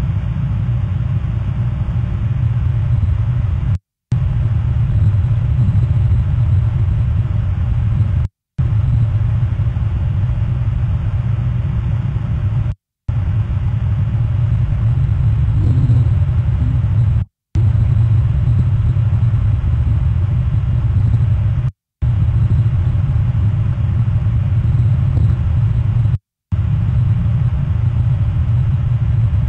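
Steady low rumble of a large cruise ship's engines, heard from the shore. The sound cuts out completely for a split second about every four to five seconds.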